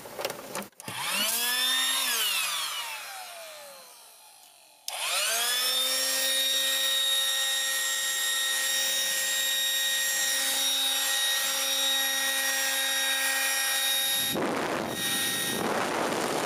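Small 12-volt electric inflator pump, powered from a car's cigarette-lighter socket, whines up to speed about a second in, then slowly spins down. About five seconds in it starts again, comes straight up to speed and runs with a steady whine, with bursts of rushing noise near the end.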